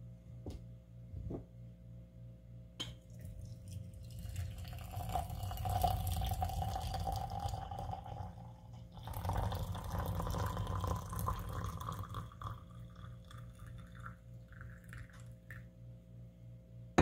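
Water poured into a glass pitcher over dried shepherd's purse to steep tea, in two pours about 4 and 9 seconds in, the pitch of the pour rising as the pitcher fills. A few light clicks come before the pouring.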